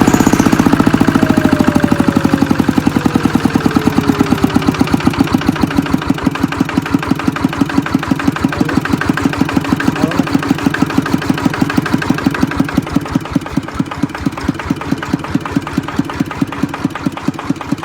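Kubota ET80 single-cylinder diesel on a walking tractor, running with a steady beat of firing strokes. Its speed falls over the first few seconds as the engine settles to idle, and it gets a little quieter later on.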